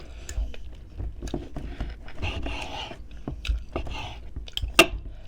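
Close-miked chewing and mouth sounds of a person eating, with many small wet clicks and one sharper click near the end.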